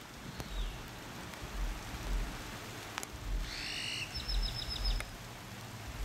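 Steady rain falling, with a few sharp drip clicks and repeated low thumps. About halfway through a bird calls: one rising note, then a quick run of about eight high chips.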